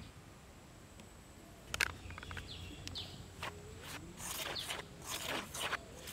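A hand rubbing and squeezing dry spiced flour in a steel bowl, heard as a gritty rustling scrape about three times a second from about four seconds in. Before that comes a single sharp knock near two seconds, and birds chirp faintly.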